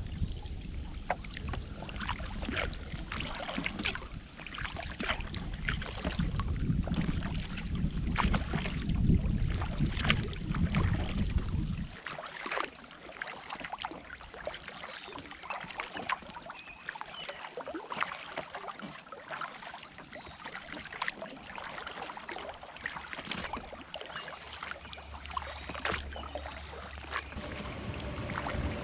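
Kayak paddle strokes: the blade splashing and dripping, and water lapping against the hull in a steady run of small splashes. A low rumble underneath stops abruptly about twelve seconds in.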